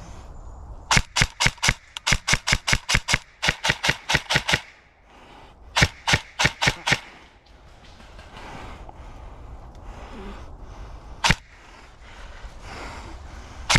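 Airsoft gun shots from a BOLT MP5K BRSS electric gun (AEG), loud and close. A fast string of sharp cracks, about six a second, runs for three and a half seconds. A shorter group of about six follows, then a single shot near the end.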